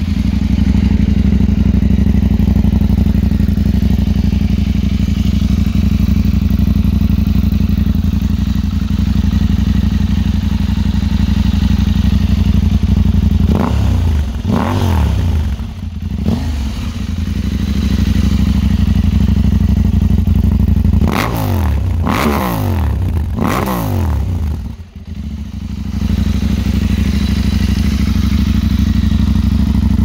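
Husqvarna Norden 901's parallel-twin engine, fitted with an Akrapovic muffler and a cat-delete mid pipe, idling steadily with a deep, raspy exhaust note. About halfway through it is revved in a few short throttle blips, and again in another burst of blips some seconds later.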